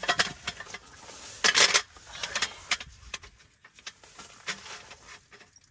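Irregular light clicks and knocks of gear being handled, with a louder short scrape about a second and a half in, then only a few scattered clicks.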